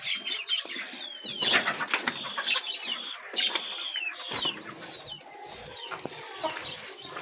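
Caged birds chirping and calling: many short, falling chirps one after another, with a few sharp clicks and clinks from a padlock and keys being handled.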